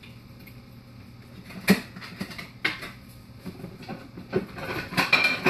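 Kitchen cabinet being opened and closed and dishes clattering as a plate is taken out: a few separate sharp knocks, the loudest a little under two seconds in, then a quick run of clinks near the end.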